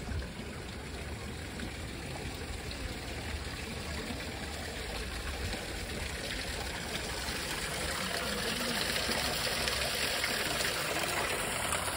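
Water trickling down a mossy rock face and running over stones, a steady splashing hiss that grows louder over the last few seconds.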